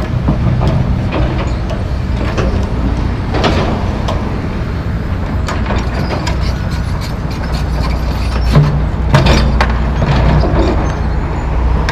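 John Deere 245G track excavator and John Deere 300D articulated dump truck running with a steady diesel drone while the excavator loads dirt and concrete debris into the truck's box. Several sharp clanks and thuds stand out, about three seconds in and again around eight to nine seconds in.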